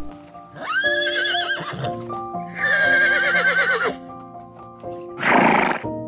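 Horse whinnying twice, each a long call with a quavering, fluttering pitch, then a short breathy blow near the end, over soft background music.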